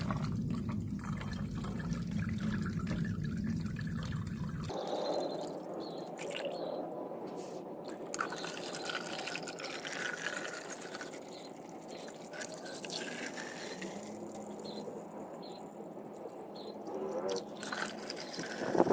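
Water pouring from a garden hose through a plastic mesh basket into a plastic tub, filling it. The splashing changes character suddenly about five seconds in.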